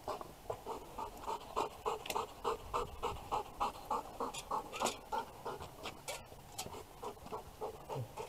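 Belgian Malinois panting hard and fast, about three breaths a second, close to the microphone.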